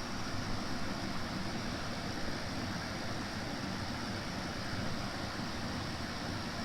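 Consul 12,000 BTU portable air conditioner running with a steady, even fan and airflow noise.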